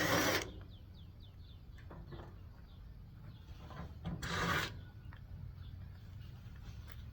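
Two short rasping scrapes, one at the start and one about four seconds in, as security screws are worked out of a Samsung appliance's casing with a driver bit.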